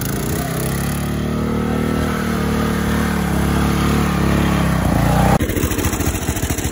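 Gilson go-kart's small engine running under load as the kart drives, its note rising and then falling. About five seconds in the sound cuts sharply to a closer, choppier beat of the same engine.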